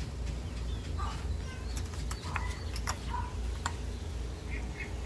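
Light metal clicks and taps of valve buckets and shims being set into a cylinder head, over a steady low rumble, with a few short bird chirps.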